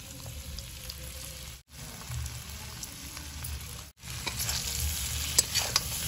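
Boiled potato pieces sizzling in hot mustard oil in a metal kadhai. From about four seconds in, the sizzle grows louder and a metal spatula stirs and scrapes against the pan with sharp clicks.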